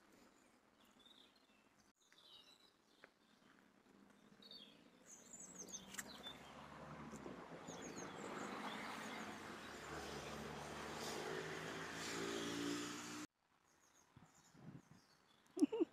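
Small birds chirping faintly. From about five seconds in, a steady hiss with a low hum grows louder for several seconds, then stops abruptly near the end.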